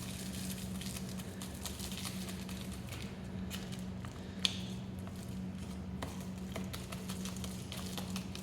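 Cheese powder packet being shaken and tapped over a microwave mac and cheese cup: soft scattered taps and rustles, with one sharper click about four and a half seconds in. A steady low hum runs underneath.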